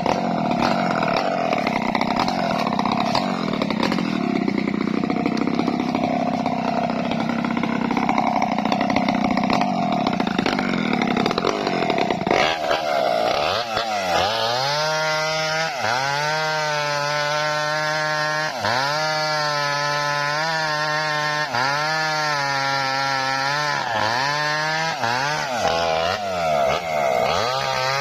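Small Maestro chainsaw ripping lengthwise through a coconut-palm trunk. For the first twelve seconds or so the cutting sound is dense and noisy; then the engine note comes through clearly, dipping in pitch and recovering about every two seconds.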